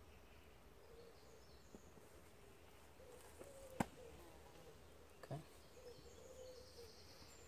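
Quiet woodland with faint bird chirps; a single sharp clack about four seconds in and a softer knock about a second and a half later as the frying pan of bannock bread on the campfire is handled.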